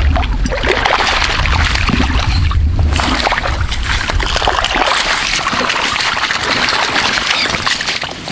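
A hooked pike thrashing and splashing in shallow water at the bank as it is grabbed by hand. Wind rumbles on the microphone, heaviest in the first few seconds.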